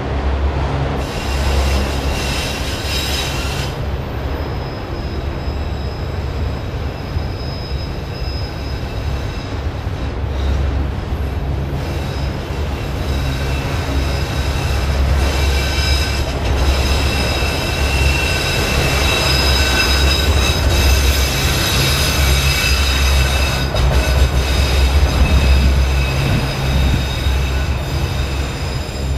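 Autorack freight cars rolling past: a steady rumble of steel wheels on the rails, with high, thin squealing tones from the wheels that come and go. The squeal grows louder in the second half.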